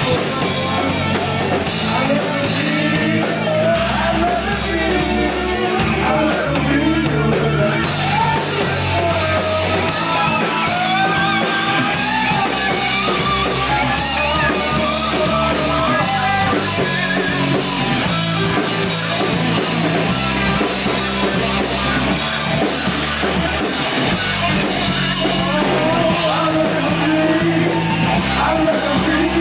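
Rock band playing: electric guitars, bass and drum kit, with a sung vocal line over them.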